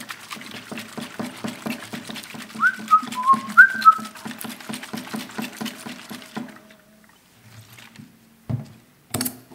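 Water sloshing in a pressurised plastic soda bottle on a carbonator cap, shaken rapidly and rhythmically so that the CO2 dissolves into the water, for about six seconds. A few short whistled notes sound about three seconds in, and two knocks come near the end as the bottle is set down.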